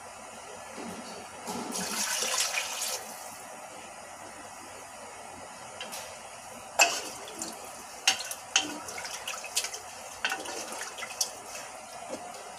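Liquid poured into a metal pot of meat gravy, a rushing splash lasting about a second and a half. Later a wooden spoon stirs the pot, with a string of sharp knocks against its sides.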